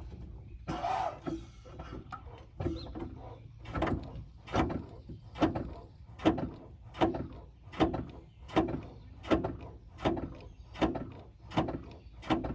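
A regular series of about a dozen clunks, one every three-quarters of a second or so, as the brake pedal is pumped over and over. The pumping pushes the caliper pistons back out so the freshly fitted front pads seat against the rotor.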